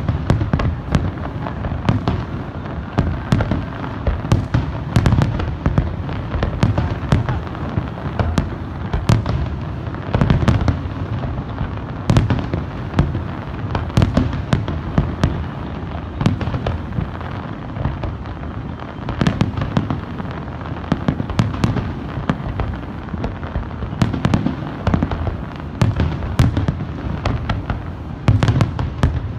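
Fireworks display: a dense, continuous barrage of aerial shell bursts, many sharp cracks over a steady low rumble of booms.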